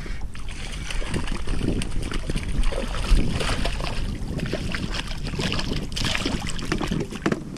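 Hooked fish thrashing and splashing at the water's surface beside the boat as it is reeled in and grabbed by hand. Many rapid splashes over a low wind rumble on the microphone.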